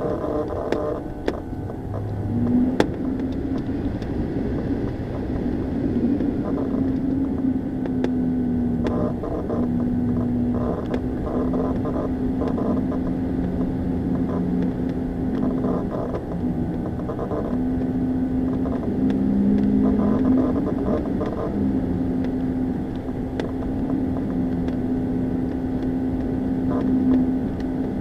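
Tow plane's piston engine droning steadily during an aerotow, its pitch wavering slightly, with wind noise.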